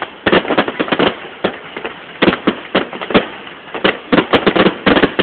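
Fireworks going off in a rapid, irregular run of sharp bangs and cracks, about a dozen in five seconds.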